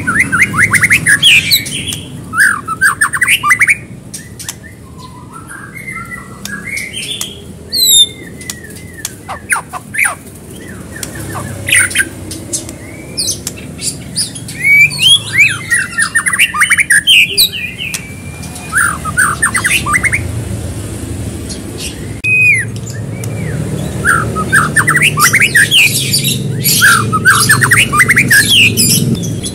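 White-rumped shama (murai batu) in full song: loud bursts of rapid, varied phrases of fast chattering notes and high whistled glides, broken by short pauses.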